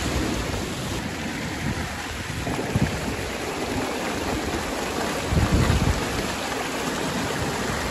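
Floodwater rushing in a steady, even roar of water, with a few low thumps about three seconds in and again between five and six seconds.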